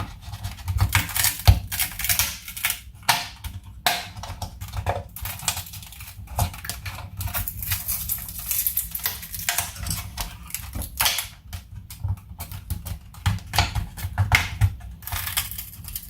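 The gauge face of a car instrument cluster being worked loose by hand: a dense, irregular run of clicks, taps and crinkles of thin plastic and small parts.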